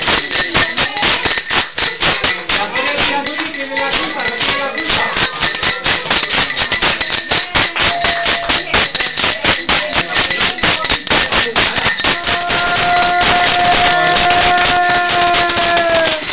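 Anís bottles played as a Spanish Christmas scraper (raca-raca): metal cutlery rubbed rhythmically up and down the ridged glass, giving a fast run of rasping scrapes. A steady held note joins over the last few seconds.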